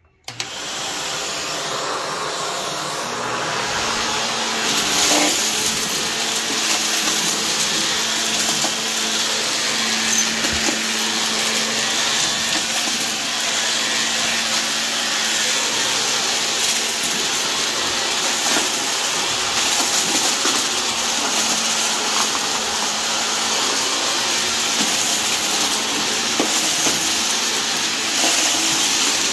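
Shark Lift-Away upright vacuum cleaner switched on just after the start, then running steadily with a low hum. It sucks up a pile of lint and small debris from carpet, with a few faint crunching clicks as bits are pulled in.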